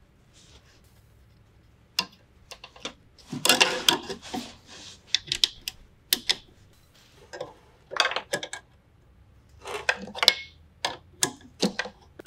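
Irregular small metallic clicks and clinks, with a short rattle about three and a half seconds in, as metal brake-line tubing and flare nuts are handled and threaded by hand into a brake master cylinder's ports.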